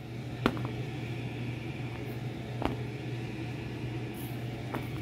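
Lit gas stove burner running with a steady low hum, with three light taps as a flatbread is handled and laid on the burner grate.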